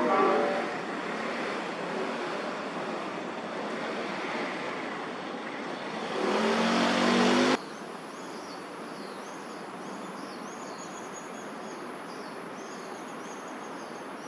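Road traffic noise with a passing vehicle's engine drone swelling, which cuts off abruptly about seven and a half seconds in. Then comes quieter park ambience of insects chirping in repeated high trills over a steady high-pitched hum.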